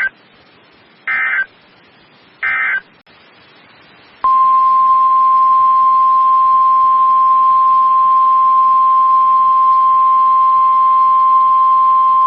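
NOAA Weather Radio Emergency Alert System signal: three short bursts of SAME digital data squeal, then after a brief pause a loud, steady single-pitch warning alarm tone (the 1050 Hz tone) that begins about four seconds in and holds. The tone announces that a warning is being issued, here a severe thunderstorm warning.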